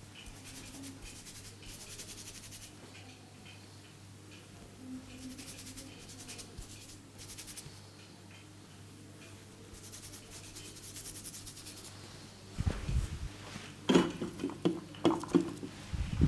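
Hands rubbing and scrubbing through hair and scalp in a head massage, coming in several short spells of fast, hissy scratching. Near the end comes a quick run of loud, sharp pops and low thumps.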